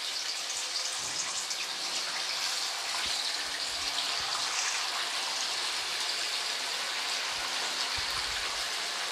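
Marinated chicken pieces deep-frying in hot oil in a wok, a steady dense sizzle as more pieces go into the bubbling oil.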